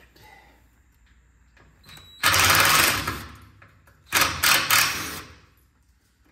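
Cordless impact driver hammering a fastener loose: one burst of under a second about two seconds in, then three short bursts about four seconds in.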